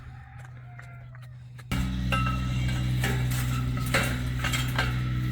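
A steady engine hum starts suddenly a little under two seconds in, with scattered metal clanks and clinks over it.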